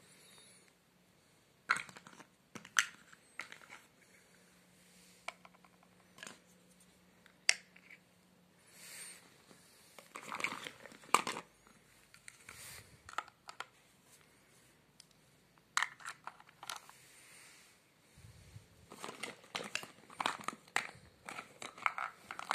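Small plastic toys being handled: scattered clicks and knocks, then a quick run of clattering near the end as a hand rummages through a pile of plastic toys.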